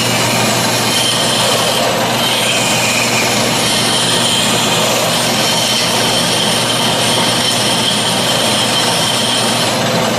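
Metal lathe running steadily, spinning a Delco 37MT starter armature, with a steady hum under the hiss of a flat file held against the turning copper commutator. The file is dressing the commutator surface instead of turning it with a cutting tool.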